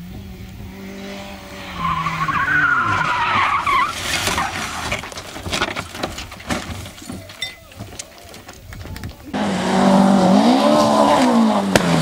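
Rally cars crashing: an engine and tyres skidding, then a run of bangs and scrapes as a car rolls over on tarmac. Near the end another rally car's engine revs up and down, the loudest part.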